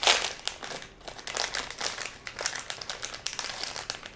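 A child's hands crinkling a blind-bag toy packet as it is pulled open: a dense, irregular run of crackles, loudest right at the start.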